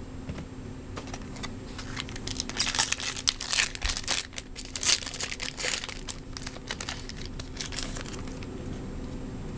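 Trading-card pack wrapper crinkling and tearing as it is handled and opened, a dense run of crackles loudest in the middle.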